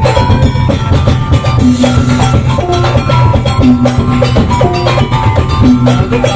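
Loud music with drums and percussion and a short melodic phrase that repeats about every two seconds, played through horn loudspeakers.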